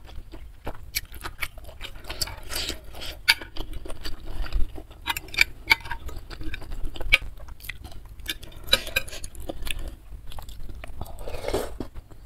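Close-miked chewing and wet mouth sounds of eating spicy noodle soup, with a metal spoon and fork clinking against the bowl as noodles are lifted. Near the end comes a slurp as a spoonful reaches the mouth.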